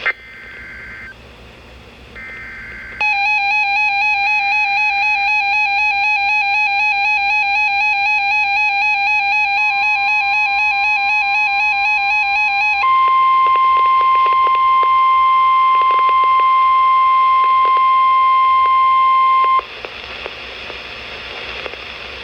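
NOAA Weather Radio alert tones: three short, faint bursts of the digital SAME header, then a loud pulsing, warbling alarm tone for about ten seconds. Under it and then alone comes the steady 1050 Hz weather warning tone, which cuts off after about ten seconds into radio static.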